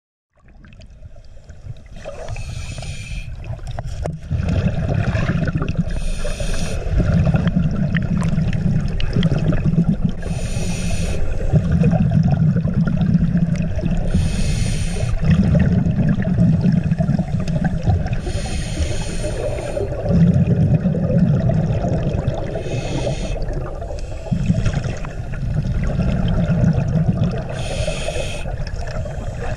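Underwater sound of a scuba diver breathing through a regulator: a short hiss on each inhale, about every four seconds, alternating with a low bubbling rumble as exhaled air escapes.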